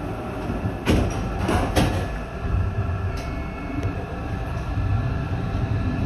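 Končar NT 2200 low-floor tram heard from inside the driver's cab: a steady low hum while it stands, a few short knocks about a second or two in, then its running noise growing near the end as it pulls away.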